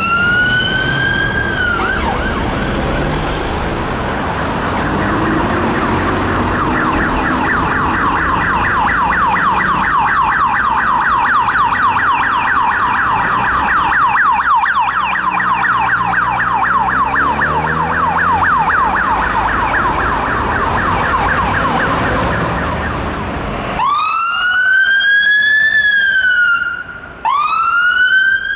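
UK police siren winding up in a wail, then switching to a fast yelp that runs for about twenty seconds. Near the end a fire engine's siren takes over, wailing in slow rises and falls.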